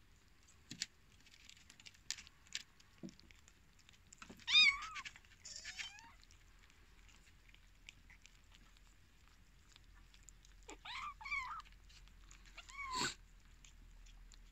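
Cats meowing: several short meows come in two bunches, one near the middle and one toward the end, and the first is the loudest. A few faint clicks come early on.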